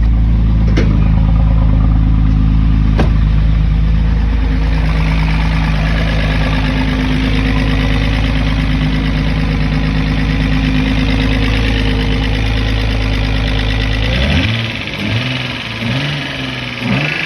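A 1996 VW Cabrio's engine running steadily at idle, having started on a newly fitted fuel pump. Near the end the steady running sound drops away and a few short rising-and-falling tones follow.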